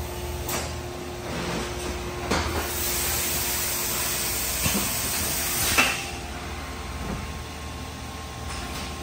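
Plastics-processing machinery running with a steady hum and a few sharp clunks. A loud hiss of air builds a couple of seconds in and stops with the loudest clunk a little past the middle.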